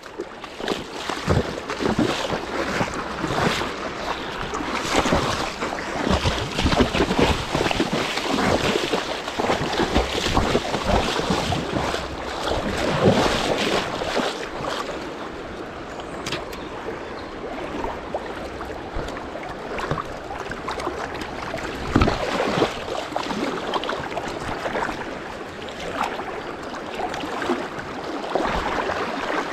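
Fast-flowing river rushing, with wind buffeting the microphone and irregular splashes and knocks throughout, most frequent in the first half.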